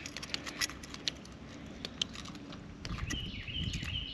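Light, irregular clicking and rattling of a hook and lure being worked out of a largemouth bass's mouth by hand. Near the end a high, repeated chirping squeak comes in over a low rumble of handling.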